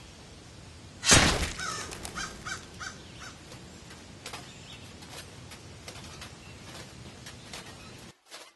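A crow cawing: one loud harsh caw about a second in, then a quick run of shorter caws, over faint outdoor ambience that cuts off just before the end.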